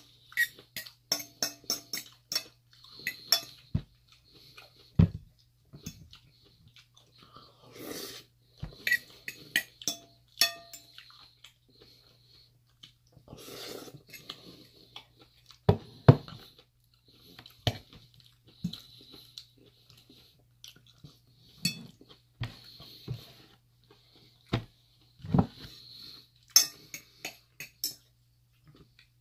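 Close-up chewing and crunching of a lettuce salad, with a fork clicking and scraping against the bowl in short clusters between quieter pauses.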